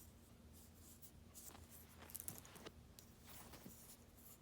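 Near silence with a few faint, scattered clicks and rustles of small plastic toy dolls being handled.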